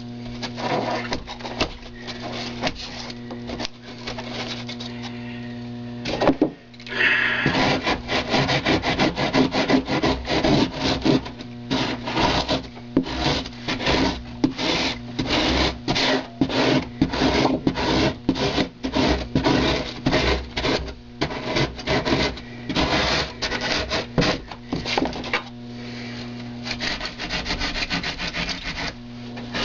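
Hand saw cutting and scraping into extruded foam board with quick back-and-forth strokes, starting about a quarter of the way in and easing off near the end, over a steady low hum.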